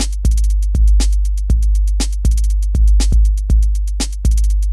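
Background electronic music: a drum-machine beat with heavy bass kicks roughly every three-quarters of a second and quick hi-hat ticks between them.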